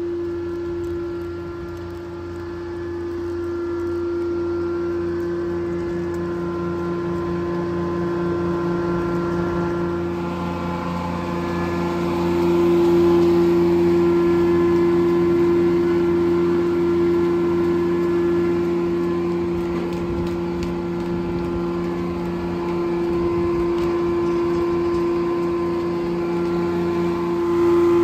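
Corley circle sawmill running: its belt-driven engine and spinning blade give a steady, loud pitched hum, a little louder from about twelve seconds in.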